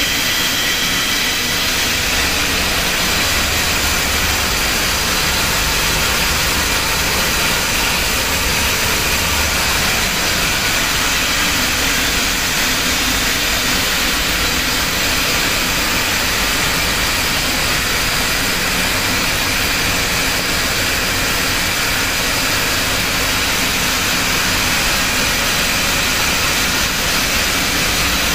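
Roller die (micro rolling cassette) wire drawing machine running steadily: a constant loud machine noise with a strong hiss, without pauses or changes.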